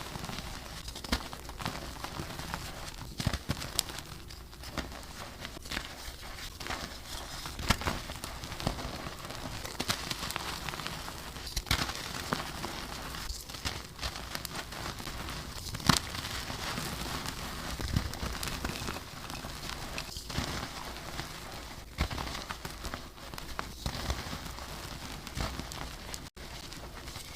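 Blocks of dyed and reformed gym chalk being crushed and crumbled, a continuous crunchy crackling with many sharp little cracks scattered through it.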